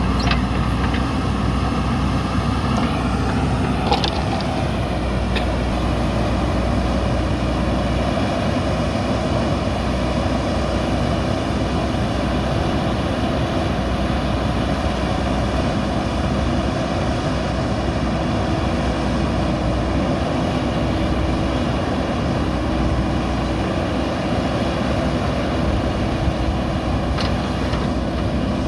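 Diesel engine of a JCB 3DX backhoe loader running steadily, with a short rise in pitch and a knock about four seconds in.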